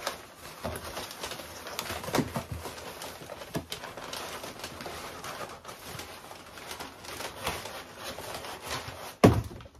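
Crumpled kraft packing paper and cardboard rustling and crinkling as hands dig into a shipping box and pull the paper loose. A single sharp thump, the loudest sound, comes near the end.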